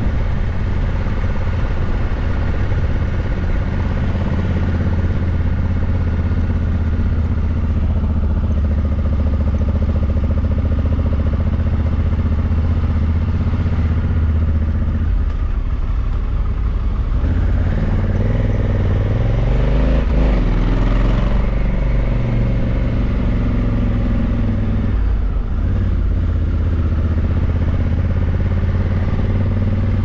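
Honda CRF1100L Africa Twin's 1084 cc parallel-twin engine running under way at steady revs. A little past halfway, the engine note drops and climbs again for several seconds before settling.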